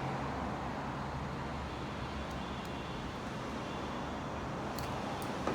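Steady background noise with a low hum, and a few faint, short clicks.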